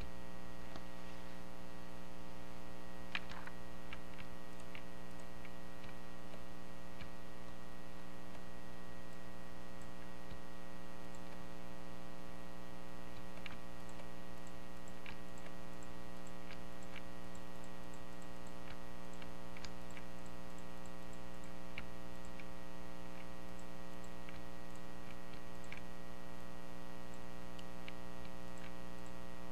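Steady electrical mains hum with a buzzy stack of even overtones, under faint scattered computer mouse clicks every second or two.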